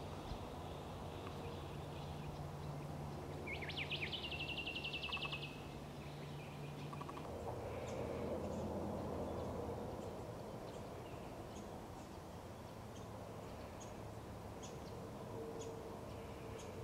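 Australasian grebe giving its rapid chattering trill, about two seconds long, starting about three and a half seconds in. A faint steady low hum lies under it and fades out about halfway through.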